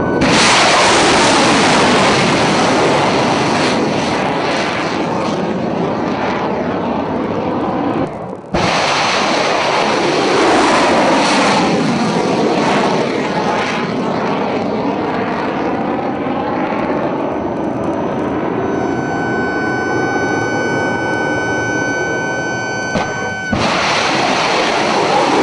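Tomahawk cruise missiles' solid-fuel rocket boosters blasting off from a warship's vertical launch cells and climbing away in a loud, continuous rushing roar. Separate launches are cut together, so the roar breaks off abruptly twice and starts again. A steady high whistling tone rides over it for several seconds before the second break.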